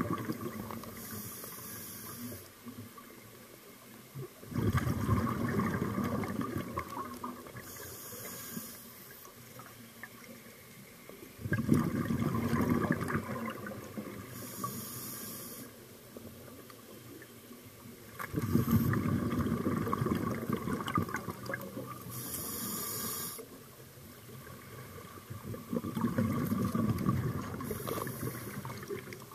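A scuba diver breathing through a regulator underwater: a short hissing inhale, then a long burst of exhaled bubbles rushing out, about five breaths several seconds apart. The bubble bursts are the loudest sound.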